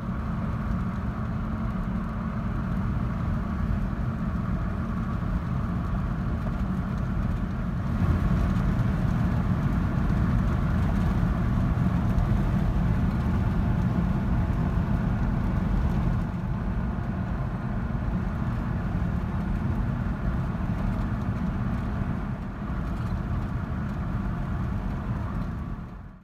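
Car driving along a road, heard from inside the cabin as a steady low rumble of road and engine noise.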